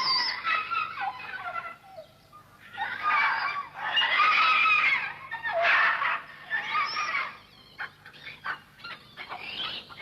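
Chattering, screeching animal calls in several bursts, typical of a monkey troop.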